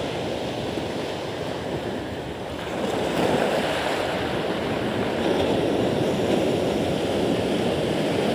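Sea surf breaking and washing up a pebble shore, a steady rushing that swells louder about three seconds in as a wave comes in.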